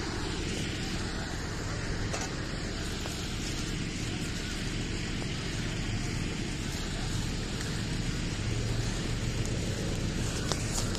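A vehicle engine running steadily as a low rumble, mixed with wind and handling noise on a phone's microphone.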